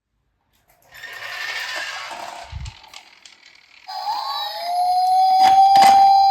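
A short rolling rattle, then about four seconds in a toy police car's siren starts, rising quickly and holding one steady pitch.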